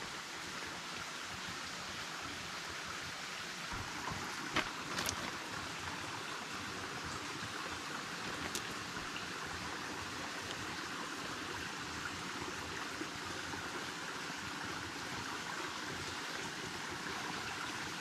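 Shallow, clear forest creek running and trickling over rocks in a steady rush of water, with a few brief clicks about four to five seconds in and again near the middle.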